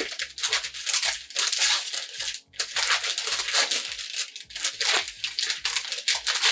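Brown kraft paper wrapping crinkling and rustling in a run of quick, irregular crackles as it is handled and pulled open around a book.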